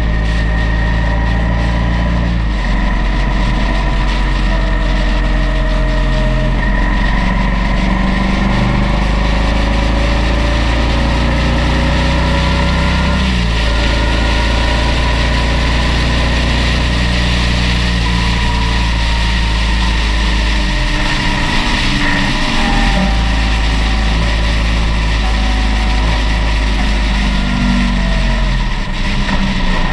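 Motorcycle engine running at road speed with wind and tyre noise, its revs rising and falling slowly as the bike takes the bends.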